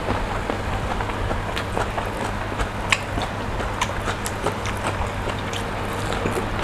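A person chewing and eating close to the microphone: many short, sharp wet smacks and clicks at an irregular pace over a steady low hum.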